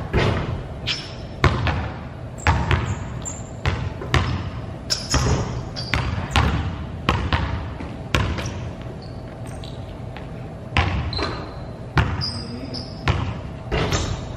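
Basketball dribbled on a hardwood gym floor: irregular bounces echoing in the large hall, with short high sneaker squeaks in between.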